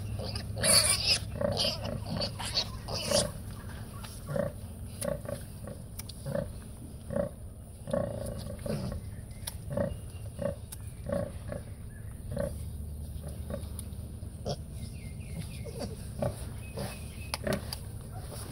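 Red Wattle sow grunting in short, regular grunts less than a second apart while her piglets nurse, the rhythmic nursing call of a sow at feeding. Louder, higher calls come in the first three seconds, and the grunts thin out in the last few seconds.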